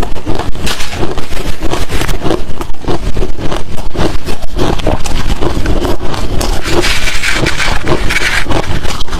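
Crushed and shaved ice being chewed close to the microphone: loud, crunchy bites in a steady run of about three to four crunches a second.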